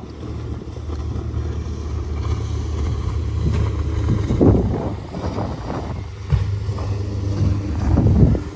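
Low, steady boat engine drone that grows louder over the first couple of seconds, with wind buffeting the microphone about four and a half seconds in and again near the end.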